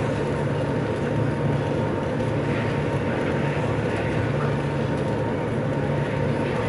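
Steady drone of an Austal fast ferry's engines and KaMeWa waterjets at high speed, heard inside the passenger cabin: a constant low hum with a thin steady whine above it.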